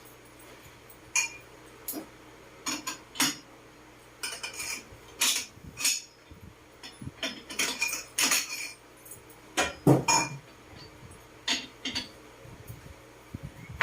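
Irregular light metal-on-metal clinks and taps, some ringing briefly, as steel tools and parts are handled and knocked together, over a faint steady low hum.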